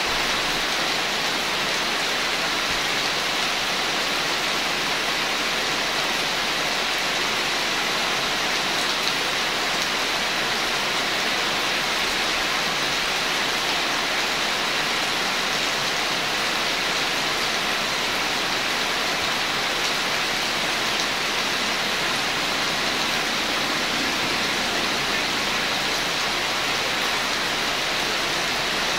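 Steady rain falling, a continuous even hiss that neither builds nor eases.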